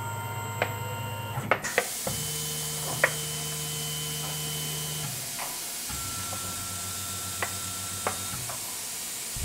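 CNC mill spindle running a spiral-flute tap through holes in a steel part during rigid tapping. The spindle motor's whine stops and starts again at a different pitch every two to three seconds as the tap feeds in, reverses out and moves to the next hole. A few sharp ticks sound along the way.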